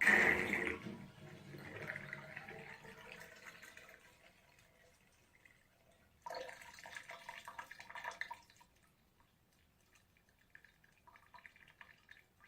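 Small water drops dripping and splashing in a small room. A loud patch at the start fades over about four seconds. A dense run of drips starts suddenly about six seconds in and stops about two seconds later, and faint scattered drips follow near the end.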